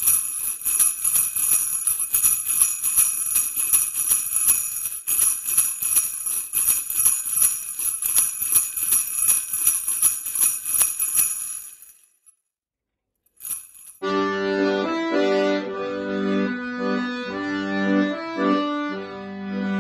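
Jingle bells shaken in a steady rhythm for about eleven seconds, then stopping. After a short pause and one brief jingle, an accordion starts playing a tune in chords.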